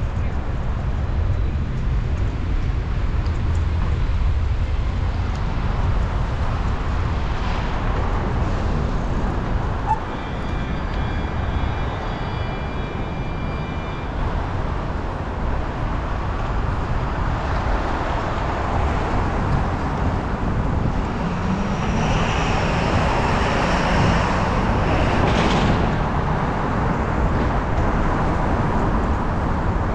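Low rumble of wind on the microphone and road noise while riding a bicycle through city traffic, with cars going by. The rumble eases for a few seconds about a third of the way in, when faint high whines sound briefly.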